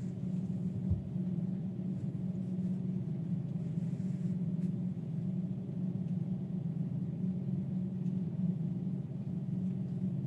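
A steady low hum with no speech, and one soft low thump about a second in.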